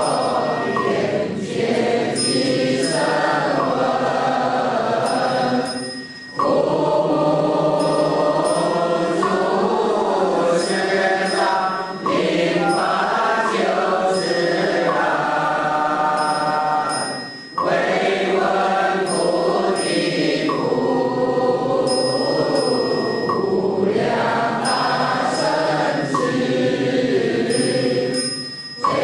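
Group chanting of a Buddhist devotional verse or mantra, sung with instrumental accompaniment, in phrases of several seconds each ending in a brief break.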